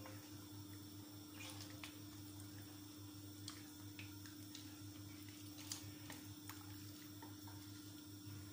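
Banga (palm-nut) soup being stirred with a wooden spoon in a stainless-steel pot: faint liquid sloshing, with a few light clicks of the spoon against the pot, over a steady low hum.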